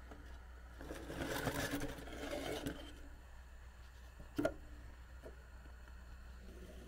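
An aluminium frying pan is shifted on the metal stand of a small alcohol stove, scraping and rattling for about two seconds. A single sharp knock follows a few seconds in, over a low steady hum.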